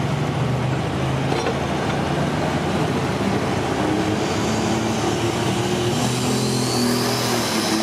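Pulling tractor's turbocharged diesel engine running hard under load, its pitch climbing about halfway through, with a high turbo whine rising near the end.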